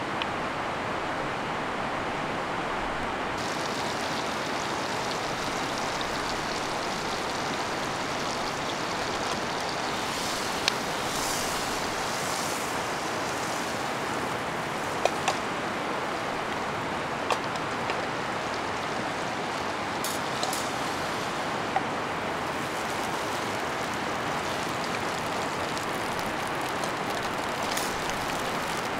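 Steady rush of river rapids. From a few seconds in, food sizzles faintly in a frying pan on a small wood-fired stove, and a utensil clinks sharply against the pan now and then.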